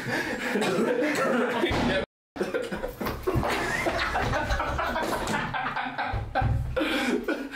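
Several men laughing loudly and hooting together. The sound cuts out completely for a moment about two seconds in.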